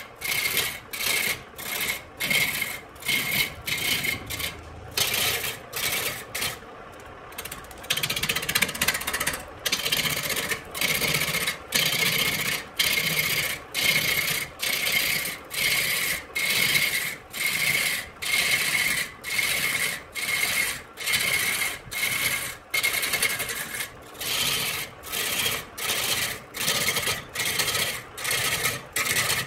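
Turning tool cutting a spinning wooden blank on a wood lathe, in repeated harsh scraping strokes about once a second, with the lathe running more quietly between. About a quarter of the way in the cutting pauses briefly, then runs unbroken for a second or two before the strokes resume.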